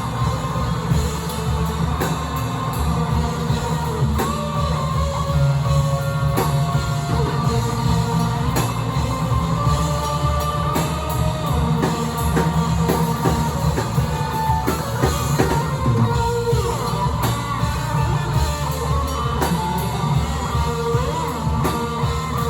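Rock band playing live: guitars and a drum kit, with a voice singing over them.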